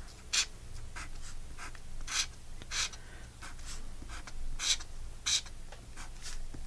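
Drawing strokes on paper: about a dozen short scratches at irregular intervals as simple lines, squares and rectangles are drawn for mark making.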